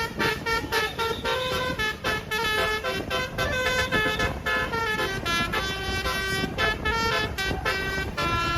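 Telolet bus horn on roof-mounted trumpets playing a melody, a quick run of changing notes that goes on without a break.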